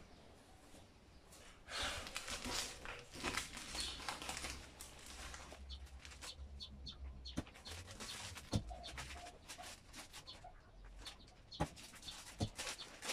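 Clear heat-shrink plastic film crinkling and rustling as it is handled and spread out, loudest in the first half. In the second half come a few sharp clacks, among them the impulse heat sealer's arm being pressed down onto the film.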